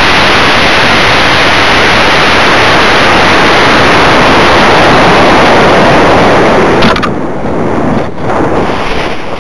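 Loud, steady rush of air over the microphone of a camera riding a high-power model rocket in flight. About seven seconds in there is a short click, and the rush drops to a quieter, gustier wind noise.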